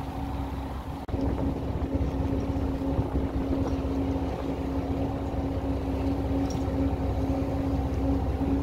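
A tour boat's engine running steadily, a constant droning hum over low rumble. It dips briefly about a second in and comes back louder.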